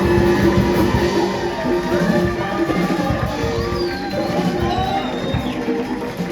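Live band playing an instrumental passage with drums and sustained low notes, amplified in a music venue.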